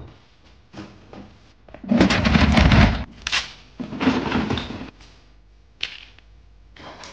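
Peanuts being handled and poured into a plastic basket: several short bursts of rattling and rustling, the loudest about two seconds in, and a sharp click near the end.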